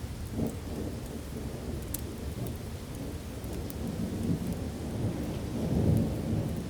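Steady rain with rolling thunder: a low rumble that swells briefly a little under a second in and builds again to its loudest near the end, with a few sharp ticks over the rain.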